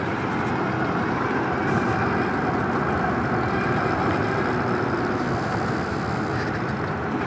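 Steady riding noise of a Super73 S2 electric bike rolling on asphalt: wind buffeting the camera microphone together with the hum of its fat tyres on the path.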